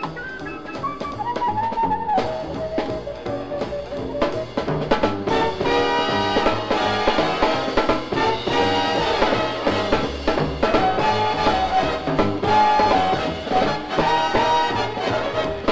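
Big-band jazz recording led by a drum kit: a melodic line steps downward over the first few seconds, then the full brass section of trumpets and trombones comes in over busy drumming about five seconds in.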